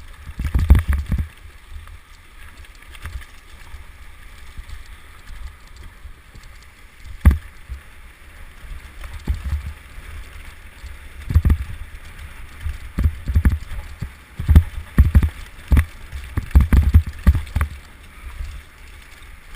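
Mountain bike descending rough ground in a downhill race, heard from a camera carried on the rider or bike: gusty wind rumble on the microphone with irregular thumps and sharp knocks from the bike jolting over the terrain, one clear knock about seven seconds in.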